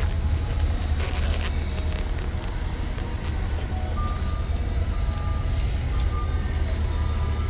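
International T444E 7.3-litre V8 diesel idling with a steady low rumble.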